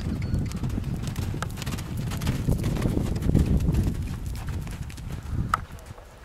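Hoofbeats of two two-year-old Irish Sport Horses running loose on a dirt arena surface: a fast jumble of low thuds, loudest in the middle and fading near the end.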